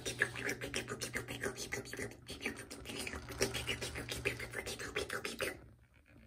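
A hard plastic toy scraped and rubbed along a mat in rapid rasping strokes, stopping abruptly about five and a half seconds in.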